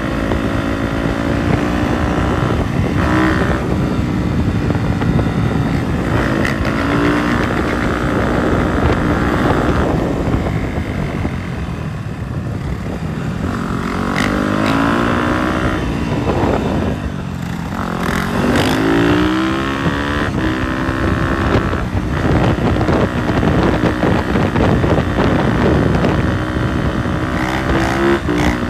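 Dirt bike engines riding along, their pitch rising and falling again and again as the throttle is worked. The biggest up-and-down sweeps come around the middle.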